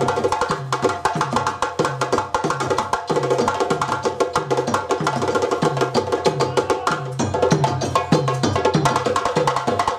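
West African drum ensemble playing live: djembes slapped and struck by hand over dunun bass drums played with sticks, in a fast interlocking rhythm with a deep bass-drum stroke about twice a second.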